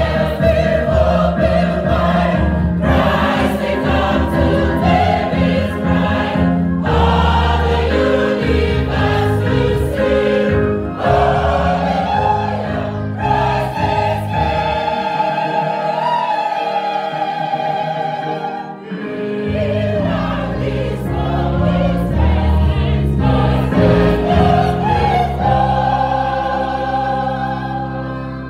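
A choir of young women singing together from song sheets. The low notes underneath drop out for a few seconds midway, and the song ends near the end.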